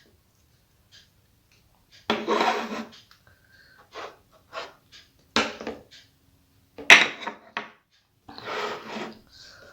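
Close-up eating sounds: a few separate bursts of chewing and mouth noise while eating rice and curry, the loudest starting with a sharp click about seven seconds in.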